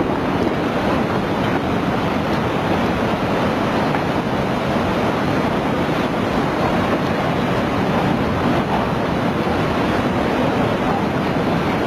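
Floodwater rushing steadily: a loud, unbroken wash of water noise.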